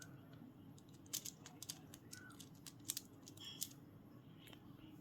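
A bird's beak clicking and tapping on a plastic Rubik's Cube, a few faint sharp clicks, some in quick pairs.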